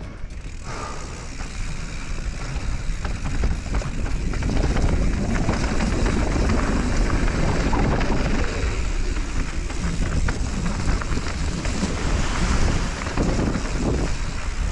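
Wind buffeting a bike-mounted camera's microphone over the tyre noise and rattle of a mountain bike rolling down a dirt singletrack. It gets louder about four seconds in.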